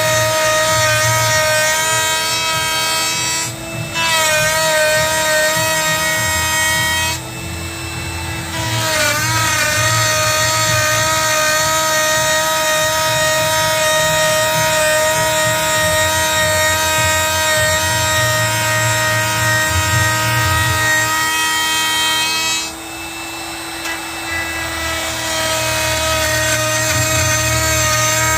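A high-speed power tool with a steady whine, cutting or sanding into wood. The cutting noise drops away briefly three times, and the whine sags in pitch as the tool bites back into the wood.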